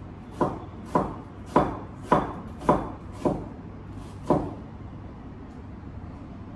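Kitchen knife chopping on a cutting board: seven sharp chops about half a second apart, the last after a slightly longer gap, then they stop.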